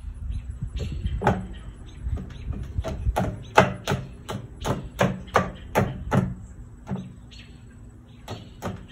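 A baby banging a plastic plate on a plastic high-chair tray: a run of sharp knocks, about three a second, from about a second in to about six seconds, with two more near the end.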